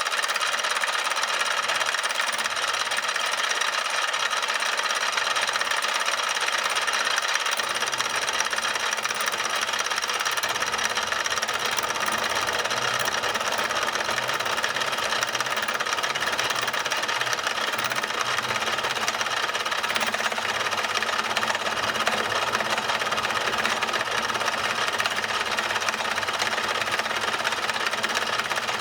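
A workshop machine or power tool running steadily without a break, a dense mechanical noise with several fixed tones held at an even level.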